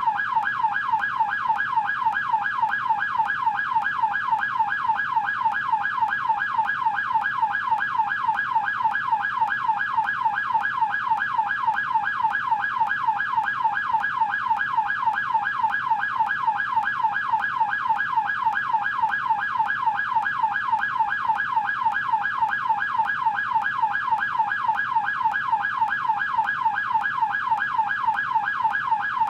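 American police car electronic siren on its yelp tone: a fast, steady, rising-and-falling wail repeating about three times a second without a break.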